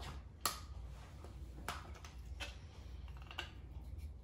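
A few sharp, separate clicks and ticks from hand work on a wiring-harness connector, the loudest about half a second in, over a steady low hum.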